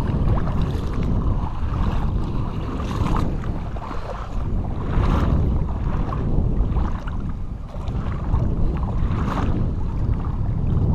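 Wind buffeting the microphone in a steady low rumble, with a few soft sloshes of water from wading through shallow bay water.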